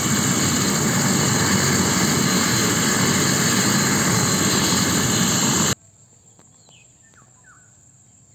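Light turbine helicopter running on the ground with rotors turning: a loud, steady rotor and engine noise with a constant whine, cut off suddenly about six seconds in. After it come faint bird chirps over a thin, steady insect buzz.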